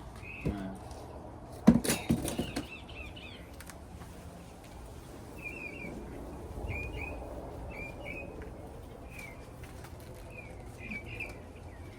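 A sharp knock and clatter about two seconds in, then a small bird chirping over and over, short high chirps about once a second.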